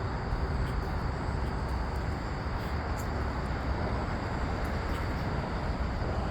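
Steady, low outdoor background rumble with a few faint ticks, without a clear single source.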